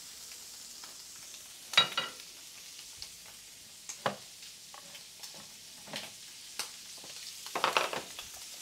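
Squid stir-frying in oil over a high gas flame in a nonstick pan, with a steady sizzle. Sharp clicks and crackles come here and there, the loudest about two seconds in and a cluster near the end. The high heat keeps the squid searing dry rather than giving off water.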